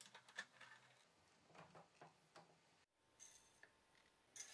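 Faint, scattered metallic clicks and light rattles of a steel roller chain being handled on a small sprocket.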